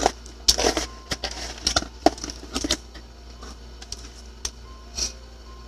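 Packaging rustling and crinkling as items are handled, in dense bursts over the first three seconds, then a few scattered light clicks.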